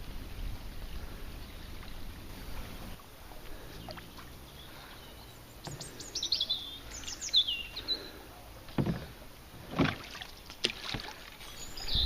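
A small bird chirping in short downward-sweeping notes, with a low rumbling noise in the first few seconds and a couple of sharp knocks or splashes near the end.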